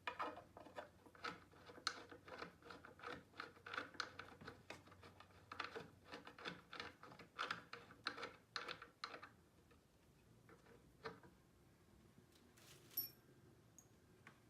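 Faint, irregular clicking and tapping of engineered-wood furniture panels and hardware being handled and fitted together during drawer assembly, for about nine seconds, then mostly quiet with a few isolated ticks.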